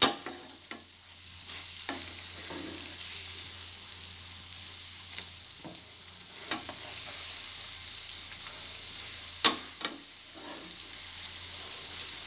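Beaten egg frying in hot oil in a pan, sizzling steadily, with several sharp knocks and scrapes of a spatula against the pan as the egg is turned. The loudest knock comes about nine and a half seconds in.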